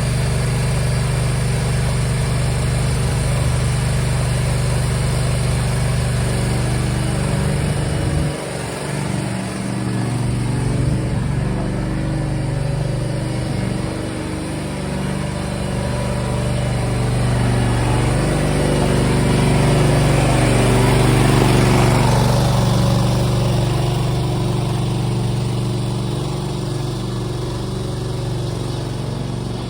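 Briggs & Stratton Vanguard engine of a mini skid steer running steadily while the machine is driven, its note and load shifting a few times. A broad rushing noise builds over it and cuts off about two-thirds through.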